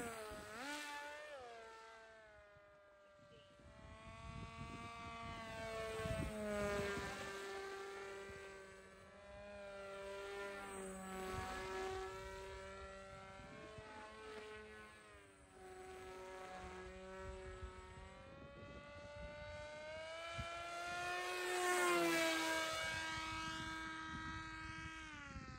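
A homemade fixed-wing FPV plane's battery-powered electric motor and propeller whining in flight, several tones together. Its pitch rises and falls as the throttle changes and as the plane passes by, and it is loudest during one close pass near the end.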